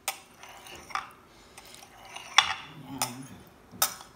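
Kitchen knife slicing through black gulaman (grass jelly) and knocking against the bottom of a glass baking dish: about five sharp clicks at irregular intervals, the loudest a little past halfway.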